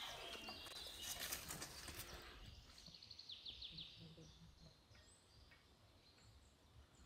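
Quiet evening ambience: a few short high bird calls, including a quick trill of about six notes a little after three seconds in, over faint clicks and rustling in the first couple of seconds.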